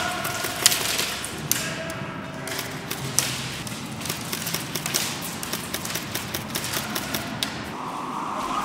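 Airsoft gunfire during close-quarters play: irregular sharp taps and cracks, some in quick runs, over a steady background hiss.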